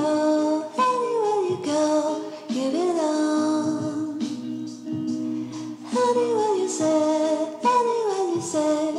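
Background music: a song with a singing voice carrying a gliding melody over an instrumental backing.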